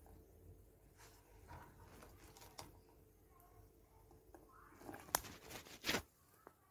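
Chopped green capsicum pieces dropping from a hand into a stainless steel bowl of diced onion: light scattered pattering and small clicks, with the sharpest ticks about five to six seconds in.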